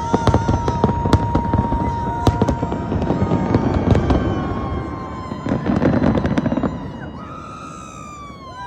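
New Year fireworks going off: rapid bangs and crackling, densest in the first four seconds, with a steady high whistling tone over them. A last loud cluster of bangs comes about six seconds in, then the bangs die away and a falling pitched tone sounds near the end.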